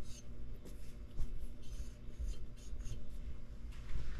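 Light scratchy rubbing with a few faint knocks and clicks as quad parts are handled by hand, over a steady low hum.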